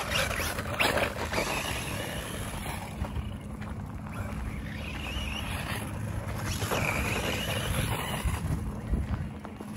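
Wiaorchi 1/16-scale brushless RC truck driving on a dirt trail: the electric motor's high whine rises and falls several times with the throttle, over a steady low rumble.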